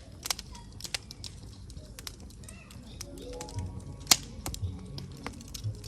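Firewood crackling and popping in a campfire: irregular sharp snaps, with one loud pop about four seconds in.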